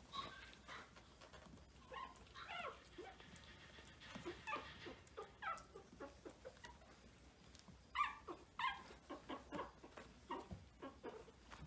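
Very young Maltese puppies whimpering and squeaking: many short, high, wavering calls from several pups, coming more often from about eight seconds in.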